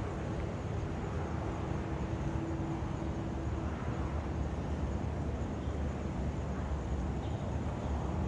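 Jet engines of a Boeing 777 freighter on landing approach: a steady low rumble, with a faint steady tone over the first few seconds.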